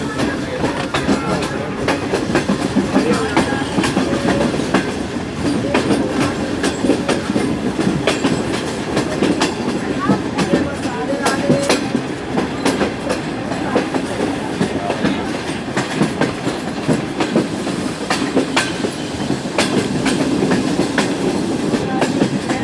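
A moving train heard from aboard: a steady rumble of the carriage with frequent sharp clacks of the wheels over rail joints.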